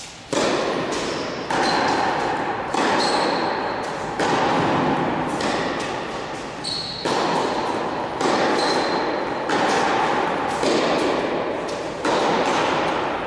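Tennis ball struck by rackets in a serve and rally: about ten sharp hits a little over a second apart, each ringing out with a long echo in a large indoor hall.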